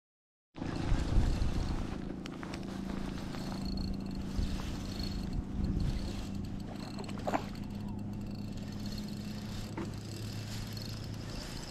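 Spinning reel cranked steadily, its gears whirring, as a hooked fish is reeled in. It starts suddenly about half a second in, with a few light clicks along the way.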